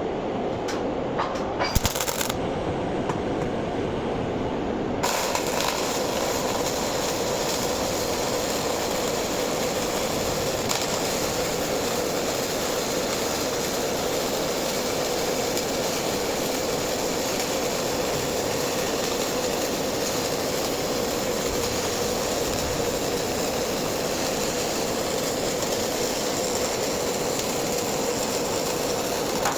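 MIG welding arc crackling: a few short sputtering starts, then from about five seconds in one long, continuous run of steady frying crackle as a weld bead is laid.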